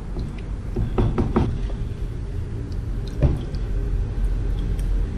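Water boiling in a clay pot over a gas burner, a steady low sound, with a few short knocks of a wooden ladle against the clay pot and bowl as soaked corn semolina is added.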